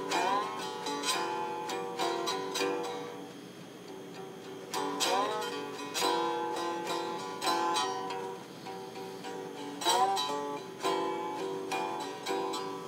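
Slide guitar played on a homemade stick-neck box guitar: plucked strings ring out, and three times (just after the start, about five seconds in and about ten seconds in) a note slides up into pitch.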